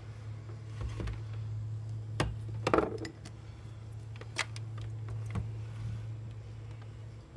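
Small hard objects clinking and knocking as they are picked up and set down: a few separate clicks, with a louder jangling cluster a little before the middle, over a steady low hum.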